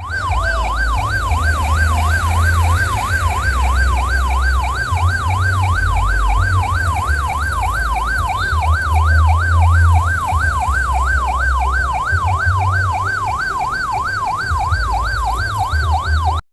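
Electronic siren in a fast yelp, about three rising-and-falling sweeps a second, over a deep booming bass that comes and goes.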